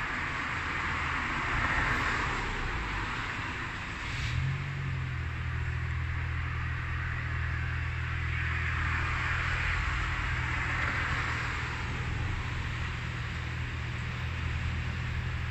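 Outdoor background noise: a steady hiss that swells and fades twice. About four seconds in, a short click is followed by a low steady hum that holds.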